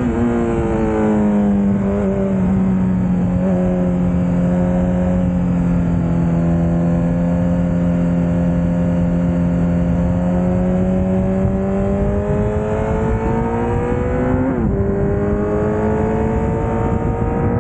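Honda CBR1000RR sportbike's inline-four engine under way, its note easing off at the start, holding steady through a long stretch, then climbing again near the end after a brief break, over wind rush on the bike-mounted microphone.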